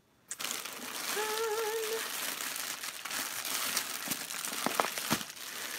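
Packaging rustling and crinkling as hands dig through a box of packaged jewelry, with a few small clicks near the end. A brief hummed note from a voice about a second in.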